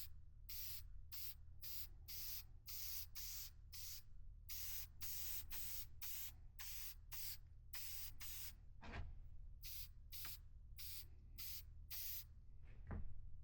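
Aerosol can of spray shellac hissing out in short bursts, about two a second, with a pause of about a second two-thirds of the way through. There is a couple of soft knocks.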